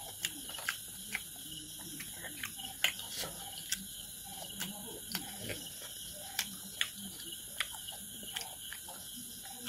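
A person eating pork and rice close to the microphone, chewing with open mouth: wet smacking and about a dozen sharp lip and tongue clicks at irregular intervals.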